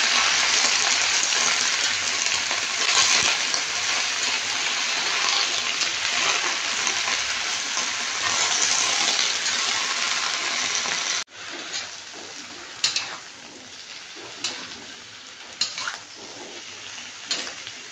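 Leafy greens sizzling loudly in hot oil in a wok while a metal spatula tosses them. About eleven seconds in the sizzle drops suddenly to a quieter fry, and the spatula then scrapes and clanks against the wok every second or so.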